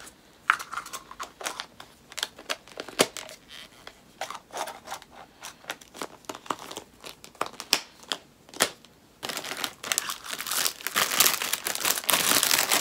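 Crinkly packaging being handled: scattered taps and short rustles, then steady, louder crinkling from about nine seconds in.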